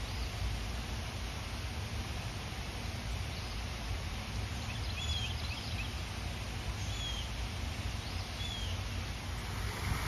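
Steady rushing outdoor noise with a low rumble, and a few short high bird chirps: a small cluster about five seconds in, then two single chirps near the end.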